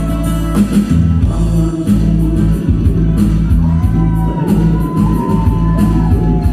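Amplified electronic keyboard accompaniment with a drum beat that comes in about half a second in, and a singing voice gliding over it from about three and a half seconds.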